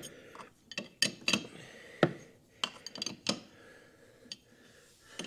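A steel wrench clinking against the mounting nuts of a car's brake master cylinder as it is fitted and turned: about ten sharp metallic clinks at irregular intervals.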